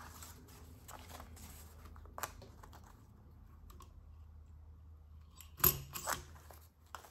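Crop-A-Dile Big Bite hole punch working through folded paper pages. There is handling rustle and a few light clicks, then two sharp snaps near the end as the punch bites through.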